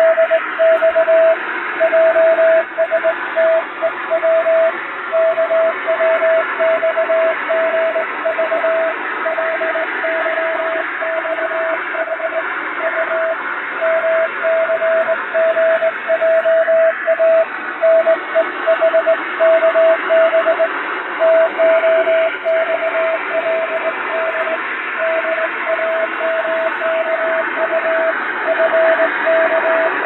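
Morse code hand-sent on a straight key: a single steady beep keyed on and off in dots and dashes, spelling five-letter code groups. It sounds over a constant shortwave-style hiss with added fading.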